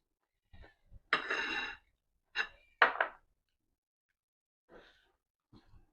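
Close-up eating sounds of a person eating dhido with chicken gravy: a breathy rush lasting under a second about a second in, then two sharp mouth clicks and a few fainter ones.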